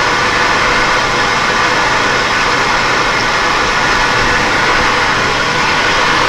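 Metalworking machine running at a steady speed while a center is drilled in a metal plate, a steady even whirr with a few faint held tones.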